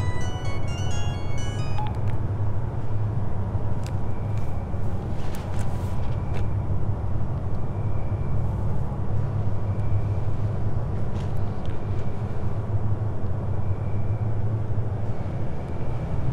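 Steady low drone from a film soundtrack, with a few quick high chiming notes in the first two seconds and faint scattered tones after that.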